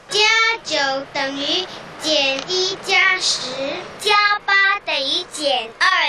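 A child singing the abacus addition rhymes as a sing-song melody, in short phrases with held notes: 'plus nine equals minus one plus ten, plus eight equals minus two plus ten'.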